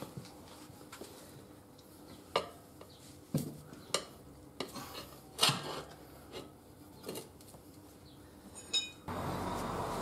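Metal tyre levers clinking and knocking against the spoked motorcycle wheel rim as a knobbly tyre's bead is levered on by hand, a handful of separate sharp knocks a second or so apart.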